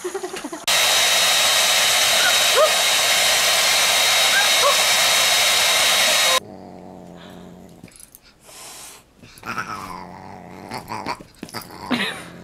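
Handheld hair dryer blowing steadily for about six seconds, with a few short chirps over it, then cutting off abruptly. Quieter, short animal vocal sounds follow.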